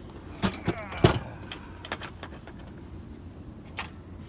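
Metal clinks and clanks of hand tools and parts being handled on a lawnmower being taken apart for scrap, the loudest knock about a second in, with a brief scraping rasp just before it and a few lighter clicks after.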